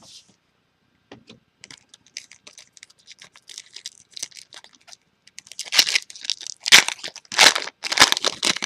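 A foil trading-card pack wrapper being torn open and crinkled, first as quiet rustling and small clicks, then as loud tearing and crackling bursts over the last three seconds.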